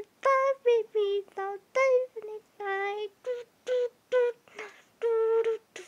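A high, child-like cartoon voice singing a string of short, clipped notes on steady pitches, about two to three a second, played through a TV's speaker.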